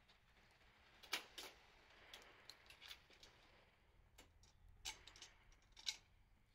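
Wood fire crackling: scattered sharp snaps and pops of burning wood over a faint hiss, with a few louder pops about a second in and again around five and six seconds in.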